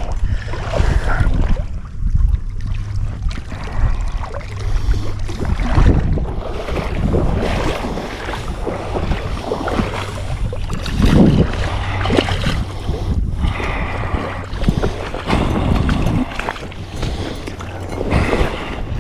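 Wind buffeting the microphone in a steady low rumble, over the irregular rush and splash of river water.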